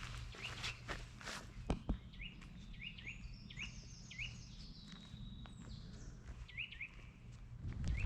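Small birds calling in the woods, with many short chirps repeated through the stretch and thin, higher whistled notes in the middle. A few soft clicks come in the first two seconds over a faint low outdoor rumble.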